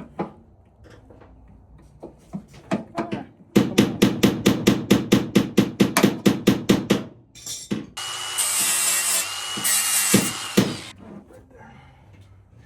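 Hand tools working on the car: a fast run of about twenty sharp knocks, roughly six a second, then a few seconds of a power tool running with a high whine and hiss, cutting off suddenly.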